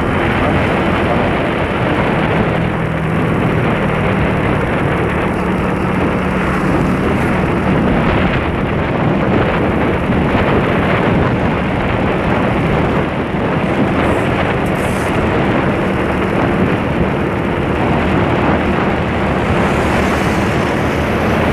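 Wind rushing over the microphone of a moving motorcycle, a loud steady rumble, with the motorcycle's engine running at a steady cruising speed underneath.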